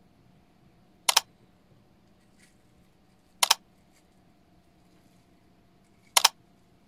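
Three short, sharp clicks, each a quick double click, about two and a half seconds apart: an editing sound effect marking each rating caption as it appears. A faint steady hum runs beneath.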